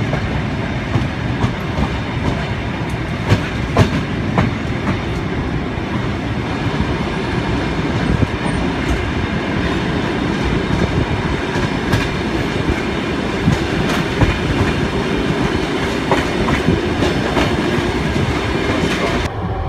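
Passenger train rolling along, heard from on board: a steady rumble of wheels on the rails with irregular clacks as the wheels pass over rail joints.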